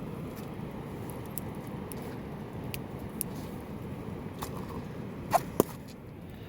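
Steady heavy rain, with scattered light taps and clicks and two louder knocks close together about five seconds in.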